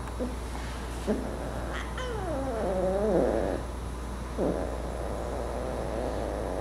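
Cat meowing several times: short calls about a second in and past four seconds, and a long, wavering meow from about two seconds in. A steady low hum runs underneath.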